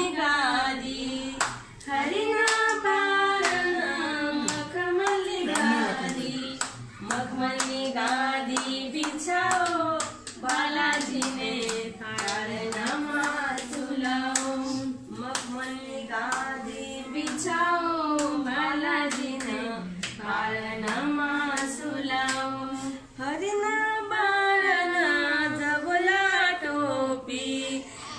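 Group of women singing a palna, a traditional cradle song, in the Rangari language, with steady rhythmic hand clapping keeping time.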